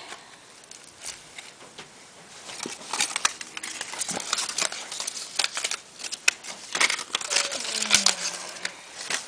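Paper shopping bag rustling and crinkling as a hand rummages through the purchases inside it: irregular crackles and crunches that grow much busier about two and a half seconds in.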